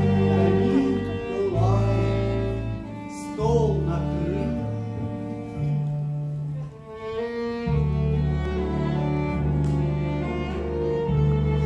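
Small live band playing a slow instrumental passage: violin and cello to the fore over held low bass notes that change every second or two.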